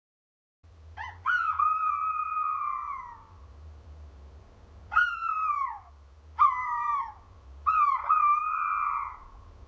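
Owl calling four times, starting about a second in: clear pitched cries that begin sharply, hold, then slide down in pitch as they fade, the first and last about two seconds long and the middle two shorter. A faint low rumble sits beneath the calls.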